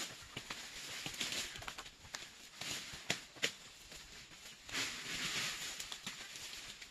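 Dry cinnamon bark and leaves rustling and crackling in uneven bursts, with two sharp snaps about three seconds in.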